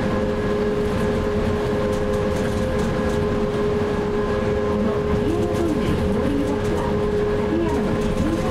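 Electric trolleybus running steadily through a road tunnel, heard from inside the cabin: a constant electric drive whine over steady road rumble, with a few short wavering tones in the second half.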